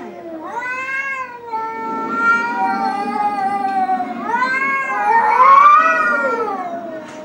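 Cats yowling at each other face to face: long, drawn-out wavering calls that rise and fall in pitch, loudest about five to six seconds in. This is the caterwauling of a tense standoff between a ginger tabby and a black-and-white cat.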